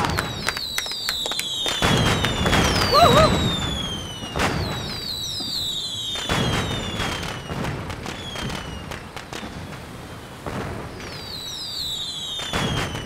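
Fireworks display: repeated bangs and crackling pops, with whistles that slide down in pitch after the bursts and one whistle that rises and falls about three seconds in.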